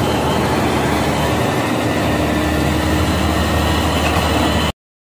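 Hydraulic excavator's diesel engine running steadily, then cut off suddenly near the end.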